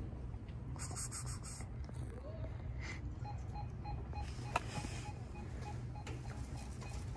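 Steady low background hum. From about three seconds in, a faint beep repeats several times a second, with one sharp click partway through.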